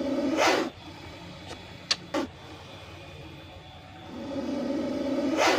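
Cobra hissing twice: each time a low growling exhalation swells into a loud breathy hiss and then cuts off sharply, with two faint clicks between the hisses.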